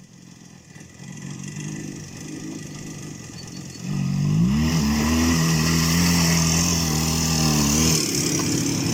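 IZh Jupiter 5 motorcycle's two-stroke twin engine running, then revving up sharply about four seconds in and held high under acceleration, easing off near the end.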